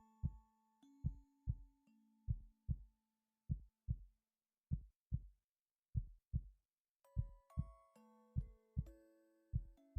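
A human heartbeat heard close up: steady paired lub-dub thumps at about fifty beats a minute. Soft background music with long held notes plays over it, dropping out around the middle and coming back about seven seconds in.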